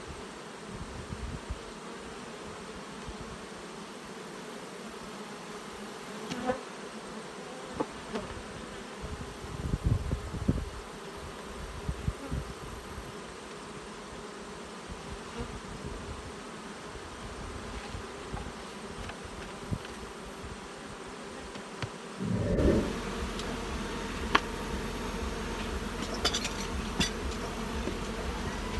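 Swarm of honey bees buzzing steadily around opened hives, with a few short knocks from wooden hive boxes being handled. About 22 seconds in, the background gets louder, with a low rumble under the buzzing.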